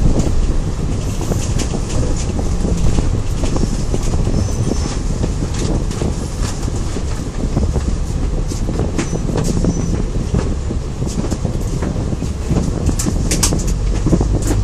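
Interior noise of a moving Alexander Dennis Enviro500 double-decker bus: a steady low engine and road rumble with frequent short clicks and rattles over it.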